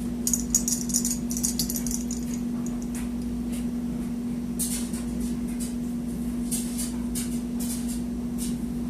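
Paper towel or cleaning cloth rustling and scratching in short spurts as it is handled and rubbed, over a steady low hum.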